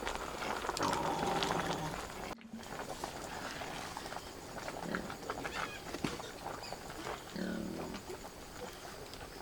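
Farm animals calling in two short spells, one near the start and one near the end, among scattered knocks and rustling.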